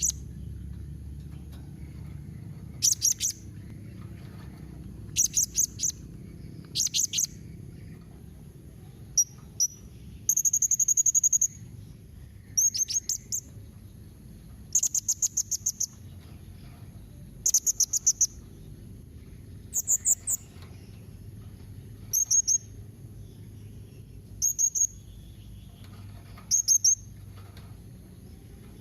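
Blue-crowned hanging parrot (serindit) calling: sharp, high-pitched notes in short rapid bursts of several every couple of seconds, with one longer trill about ten seconds in.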